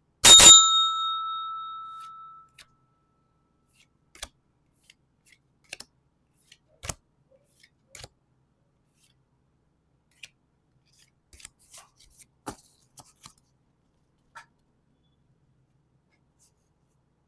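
A single loud metallic ding just after the start, ringing with several clear tones and dying away over about two seconds. After it, scattered soft clicks and rustles of Pokémon booster packs being opened and cards handled.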